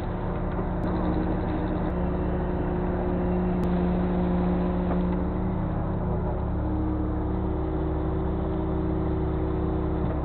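A fishing boat's engine and hydraulic net hauler run with a steady drone while the rubber rollers haul in the net. Its pitch shifts slightly about five seconds in.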